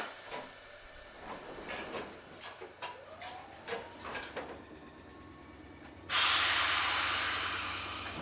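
Inside a Kotoden 1080-series electric car (ex-Keikyu 1000) standing at a station: a sharp click, then a run of knocks and clunks from the door and car equipment. About six seconds in, compressed air is let out with a loud hiss that slowly fades, a pneumatic release before the train moves off.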